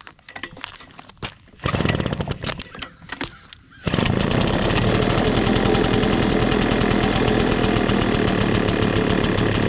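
Gas leaf blower's small engine being pull-started cold after its primer bulb has been pumped. A pull about two seconds in makes it fire briefly and die. It catches about four seconds in and keeps running steadily at a fast, even beat.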